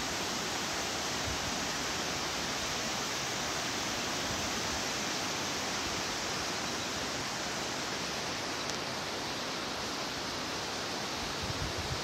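Steady rush of a waterfall and fast river water, an even hiss that does not let up.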